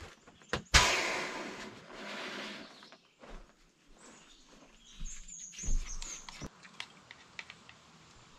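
A sharp knock followed by about a second of loud rustling, then softer rustles, a few low thumps and light clicks: camp gear being handled. A bird chirps briefly in the background.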